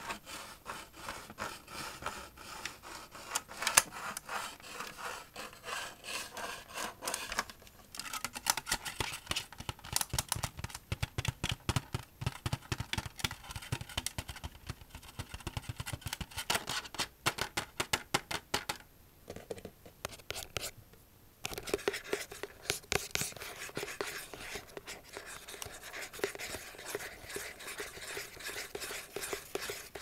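Scratching and rubbing on a small box in quick, dense strokes, with a short pause about two-thirds of the way through.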